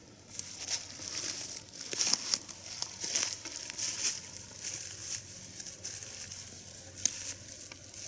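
Footsteps crunching through dry fallen leaves and brush, an irregular crackling and rustling that is loudest about two to three seconds in.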